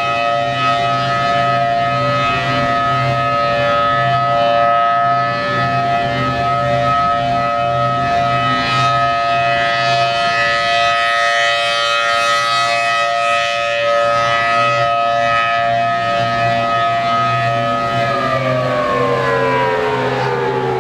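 Federal Signal Thunderbolt 1000T supercharged warning siren sounding a steady, constant-pitch tone during a test. About 18 seconds in, it begins winding down, its pitch falling.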